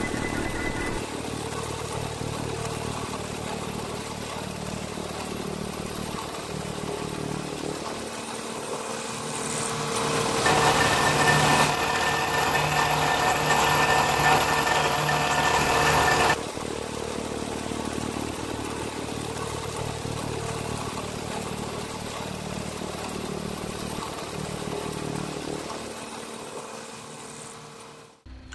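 Bridgeport Series 1 CNC milling machine running, its end mill cutting aluminium plate with a steady machine hum. A louder, hissier stretch of cutting lasts about six seconds in the middle, and the sound fades away near the end.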